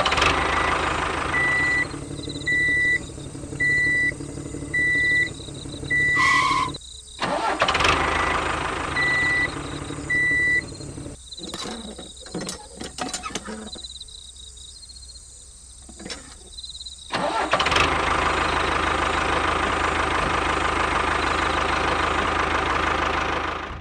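Vehicle engine sound running, with a repeating high beep about once a second through the first half. The sound cuts in and out abruptly several times in the middle, then the engine runs steadily for the last third.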